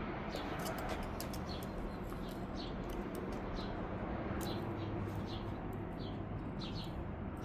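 Small birds chirping: many short, quick, downward-sliding chirps scattered irregularly, over a low steady background hum.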